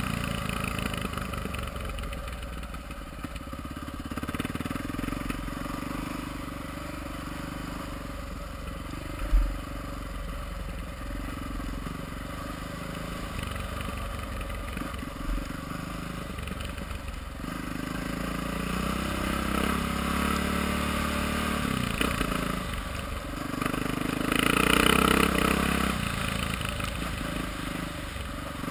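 Honda XR650R's big single-cylinder four-stroke engine running under load as the dirt bike rides along a trail, heard from a helmet camera with wind noise. A single thump comes about nine seconds in, and the engine gets louder for a couple of seconds near the end.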